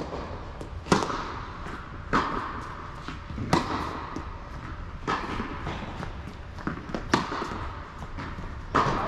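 Tennis rally on an indoor court: sharp pocks of the ball off the rackets and the court surface, about six in all at one- to two-second intervals. The loudest comes about a second in, from the serve of the nearer player, and each echoes briefly in the hall.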